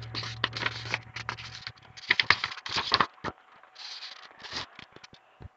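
Paper pages of a hardcover picture book being handled and turned: a string of short rustles, scrapes and small clicks.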